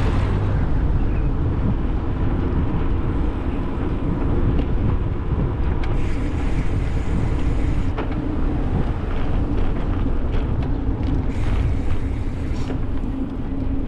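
Wind buffeting the microphone while moving along a road, a steady low rumble with a constant hum underneath.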